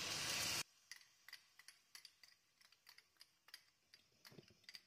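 A short hiss cuts off abruptly just after the start. Then comes a run of faint, irregular light clicks, a wooden spatula knocking and scraping against a non-stick pan while stirring almond halwa.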